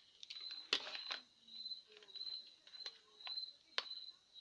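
Cricket chirping in the background, a high pulsed trill repeating evenly, with about five sharp clicks scattered through.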